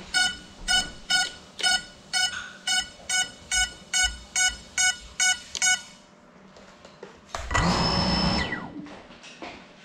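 GEPRC Cinelog35 FPV drone's electronics beeping evenly, about two beeps a second, stopping about six seconds in. About seven and a half seconds in, its brushless motors spin up with a whirring hiss for about a second, then wind down with a falling whine.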